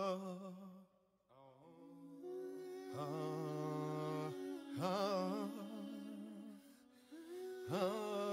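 Background song: a wordless vocal line, humming and sung notes held with vibrato, in phrases with a short gap about a second in.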